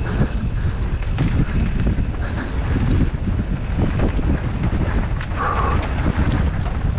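Wind buffeting the microphone of a helmet camera on a mountain bike descending at speed, over tyres running on a dirt trail and the bike knocking and rattling over bumps.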